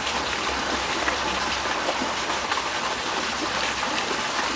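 Water running steadily with an even rushing sound.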